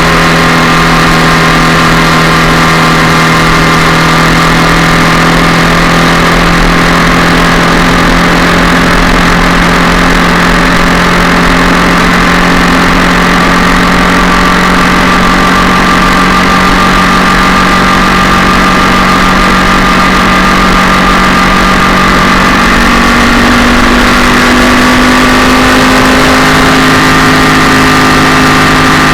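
Yamaha MT-07 parallel-twin engine with a twin-can exhaust, very loud and heard close to the engine, running at steady revs. The engine note steps up to a higher pitch about three-quarters of the way through and holds there.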